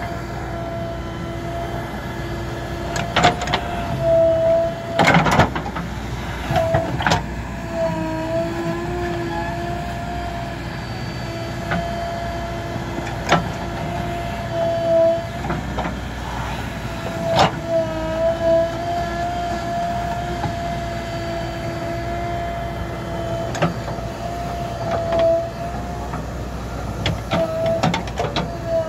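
JCB 3DX backhoe loader's diesel engine and hydraulics running as the backhoe digs soil and dumps it into a tractor trolley: a steady whine that dips briefly in pitch now and then over a low rumble, with occasional sharp clanks and knocks from the bucket and arm.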